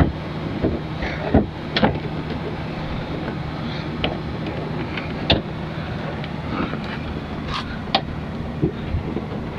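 Scattered sharp clicks and knocks of plastic being worked as the Kia Sedona's front light assembly is pulled and pried loose, over a steady low hum of background noise.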